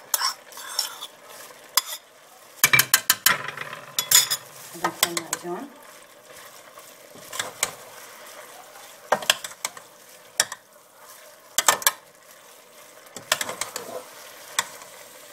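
Minced beef, onion and green pepper sizzling in a metal pan while a spoon stirs in tomato paste, with irregular scrapes and clicks of the spoon against the pan.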